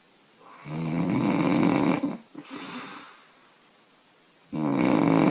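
A woman snoring loudly in her sleep: one long snore about half a second in, a softer breath after it, a pause, then the next snore starting near the end.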